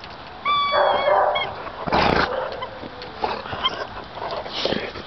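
A dog vocalising: a high, slightly falling whine about half a second in, then a short harsh noisy sound about two seconds in, with a few smaller sounds after.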